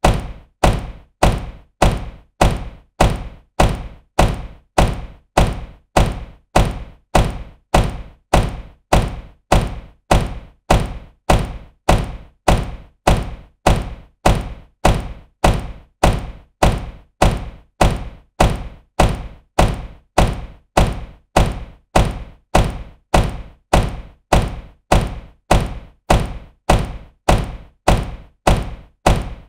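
Car door slamming shut with a solid thunk, the same slam repeated at an even pace, about one every three-quarters of a second.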